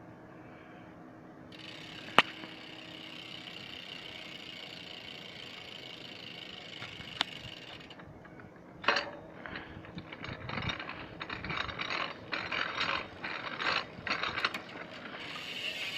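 Ragusa MX800 six-pawl bicycle hub freewheeling, its pawls ratcheting in a fast, steady high buzz as the wheel spins, with two sharp clicks. From about nine seconds in the ratcheting comes in short, uneven bursts.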